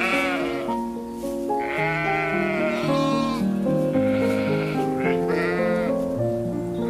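A sheep bleating several times, each call wavering and quavering, over background music with a melody of held notes.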